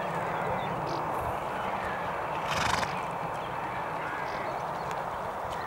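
Horse blowing out a short snort through its nostrils about two and a half seconds in, over a steady rushing hiss.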